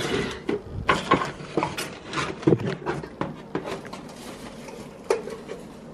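Porcelain cups clinking and knocking on a kitchen counter as they are handled and set down, a quick run of sharp clicks and knocks that thins out after about three and a half seconds, with one more knock near the end.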